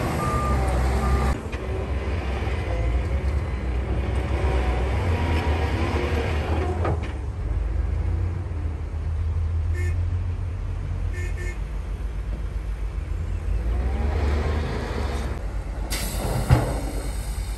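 Heavy diesel engines of a Shantui crawler bulldozer and dump trucks running with a steady low rumble. Two short bursts of reversing beeps come about ten seconds in, and a sharp knock sounds near the end.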